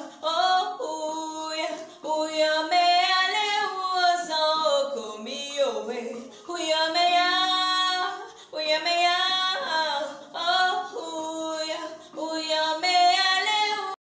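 A woman singing unaccompanied, in long melodic phrases with short breaths between them. The singing cuts off abruptly near the end.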